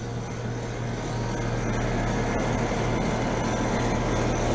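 Outdoor heat pump unit running in heat mode, not in defrost: a steady compressor hum under the rush of its fan, growing gradually louder.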